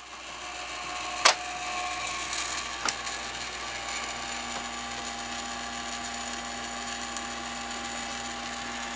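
Treadmill incline motor running steadily, driving its gears and lead screw back in, with a steady whine. Two sharp clicks sound over it, about a second in and near three seconds.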